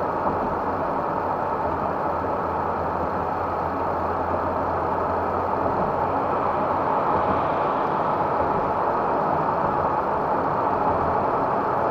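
Steady road and engine noise inside a camper's cab while driving at highway speed: tyres on asphalt over a low engine drone.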